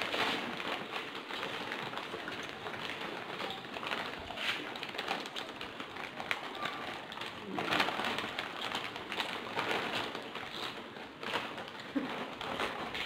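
Foil snack bags crinkling and rustling in hands while crisp chips are crunched in quick succession, a dense, continuous crackle of small clicks.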